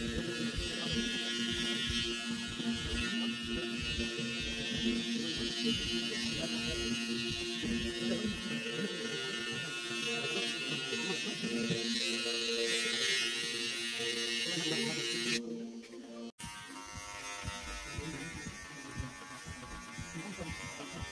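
Electric hair trimmer buzzing steadily while cutting hair along the nape of the neck for a taper fade. About 15 seconds in it stops, and after a brief break a clipper with a higher-pitched buzz runs instead.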